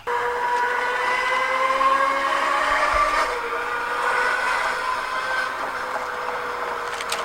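Engine sound effect played through a toy RC LaFerrari's small speaker: a synthetic revving tone that switches on suddenly, its pitch climbing slowly for about three seconds and then easing back down.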